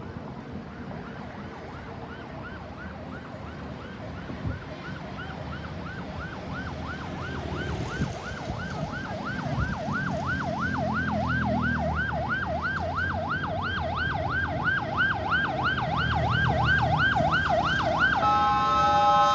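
Ambulance's electronic siren on a fast yelp, sweeping up and down about three times a second and growing steadily louder as it approaches, over road traffic. About a second before the end it switches to a steady blaring tone.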